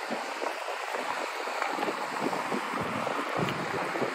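Steady outdoor hiss of wind and traffic on rain-wet roads, with faint scattered ticks.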